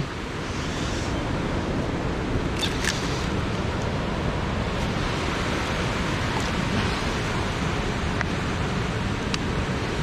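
Steady rushing of water pouring over a small waterfall, with a brief sharp sound about three seconds in.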